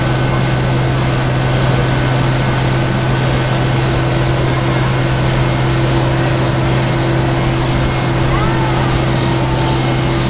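Parking-lot tram running steadily at speed, heard from aboard: a loud, even drone with a steady low hum over road and running noise.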